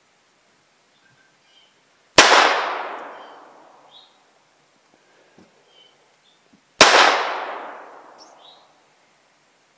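Two single shots from a scoped handgun, about four and a half seconds apart, each trailing off in a long echo. Faint bird chirps sound between them.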